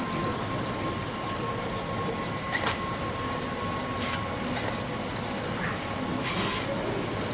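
Tesla Model 3 rear drive unit's oil pump running with a steady hum and a thin whine that fades out near the end, the car switched on so the pump keeps turning. A few short sharp clicks sound in between.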